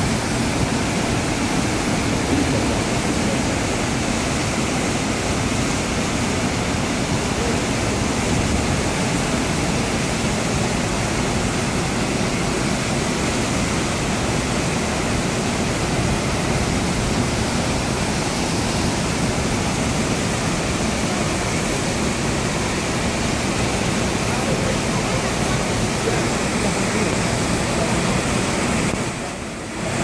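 Waterfall plunging over a rock face into a pool: a steady, loud rush of falling water that dips briefly just before the end.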